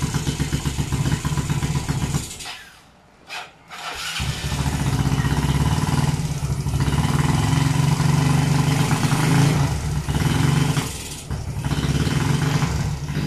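Yamaha Mio Soul scooter's freshly rebuilt single-cylinder engine, bored out to about 150cc and fitted with an aftermarket V8 racing pipe, running. About two seconds in it dies away, and it is restarted about two seconds later. It then keeps running, rising and dipping with the throttle.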